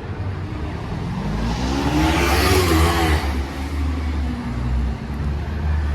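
A car passing close on the street, its engine note rising and then falling, loudest about two to three seconds in, over a steady low traffic rumble.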